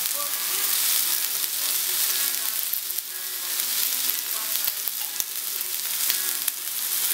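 Thin slices of meat sizzling on a hot electric tabletop grill plate: a steady frying hiss dotted with small crackles and pops.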